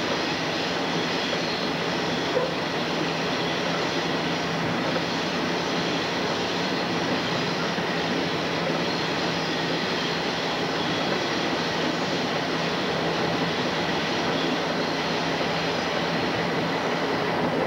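Diesel locomotive moving along the track, heard from aboard: a steady engine drone mixed with wheel and rail noise.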